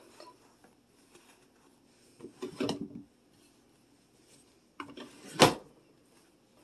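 A dresser drawer being handled: a soft scuffing sound about two seconds in, then the drawer shuts with a single sharp knock about five seconds in.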